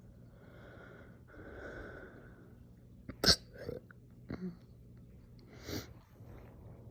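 A person's forceful hiccups: after soft breathing, one sharp, loud hiccup about halfway through, a few smaller ones right after, and another near the end.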